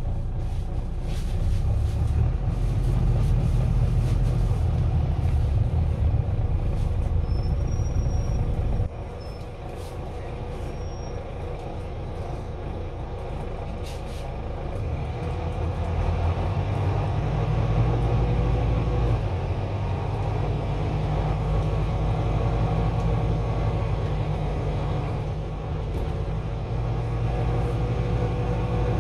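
Diesel engine of a service bus heard from inside the passenger saloon: a deep low rumble that drops suddenly about nine seconds in, then builds again from about halfway, with a whine that slowly rises in pitch as the bus accelerates.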